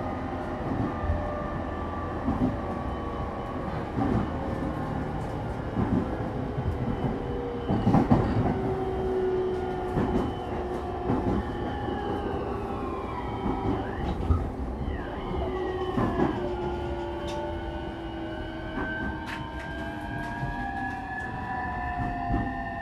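JR East E231-series motor car running, heard from inside the carriage: the whine of its Hitachi IGBT VVVF inverter and traction motors glides slowly down in pitch, then about 16 seconds in shifts to a new set of tones that rise. Occasional knocks come from the wheels over the rail joints, under a steady running rumble.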